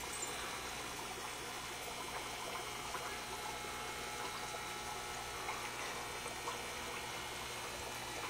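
Steady trickle of water from an aquarium filter's outflow, with a low steady hum.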